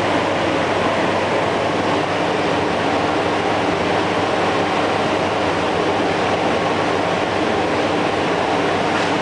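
Steady machine noise: a constant rush with a low hum underneath, unchanging throughout.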